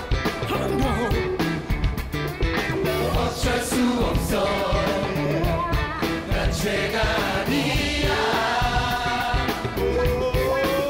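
A live band playing an upbeat pop song, with a large mass choir singing the lyrics together.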